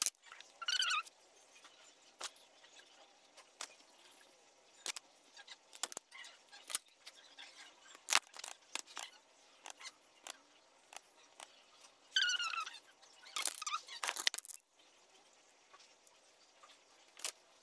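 Quiet handling noise of makeup being applied: scattered small clicks and taps from a makeup brush, bottle and caps, with a louder patch of rustling near the end. Brief high chirps sound twice, about a second in and again around twelve seconds in.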